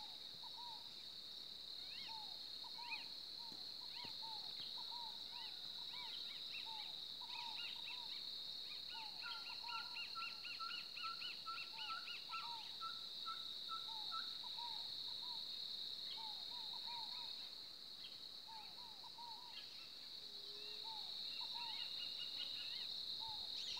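Birds calling in scrubland, many short repeated calls, with a quick run of repeated notes from about nine to fourteen seconds in, over a steady high-pitched insect drone.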